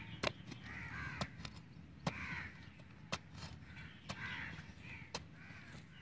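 A small flat hand spade chopping and scraping into dry, hard, stony soil, a sharp stroke about once a second. Between the strokes a bird calls several times.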